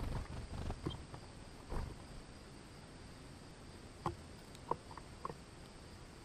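Mourning dove pecking and shuffling among black sunflower seeds in a feeder tray right at the microphone: scattered clicks and taps, with a few low thumps near the start and sharper clicks about four seconds in.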